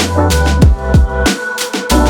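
Background electronic music with a fast drum-and-bass beat: punchy kick drums that drop in pitch, heavy sustained bass and crisp hi-hats.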